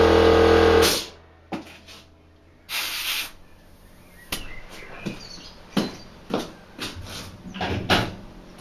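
An electric air compressor runs with a steady hum and cuts off abruptly about a second in. A short hiss of air at the tire's valve follows, then a scatter of light clicks and knocks as the valve and tools are handled.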